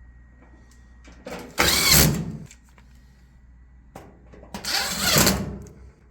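Cordless drill driving screws in twice, each run lasting about a second, with the motor's whine rising and falling.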